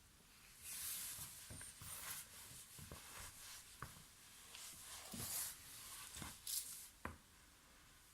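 Rustling and rubbing of hands and clothing during a back cracking, with several small pops and one sharper crack about seven seconds in.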